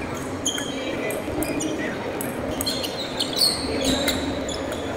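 Table tennis rally: the celluloid ball clicking off the paddles and table in quick exchanges, with short sneaker squeaks on the tiled floor as the players move.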